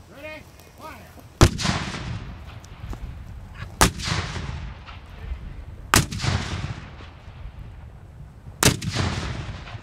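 Four shots from Civil War–style muzzle-loading field cannons firing blank charges in turn, roughly two to three seconds apart. Each is a sharp boom followed by a long rolling rumble.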